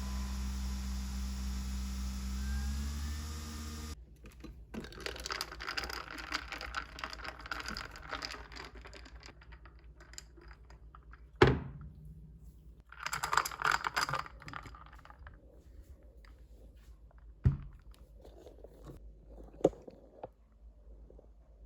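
A steady low hum that cuts off about four seconds in, then rustling and crinkling of handled objects with scattered clicks and three sharp thunks.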